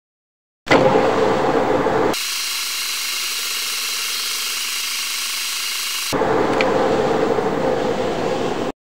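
Manual metal lathe turning a steel workpiece, the cutting tool peeling off long stringy chips as it cuts a taper under power feed: a steady, loud machining noise. It starts abruptly just after the beginning, turns thinner and hissier for about four seconds in the middle, and cuts off dead shortly before the end.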